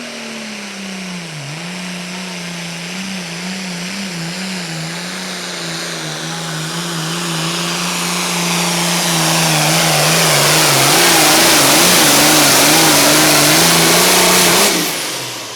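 Super Farm class diesel pulling tractor at full throttle making a pull. The engine note holds steady, dipping and wavering under load, while the overall sound grows louder through the run, then stops abruptly near the end.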